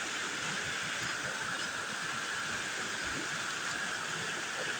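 Water pouring steadily over a small man-made waterfall on a creek, an even, unbroken rushing.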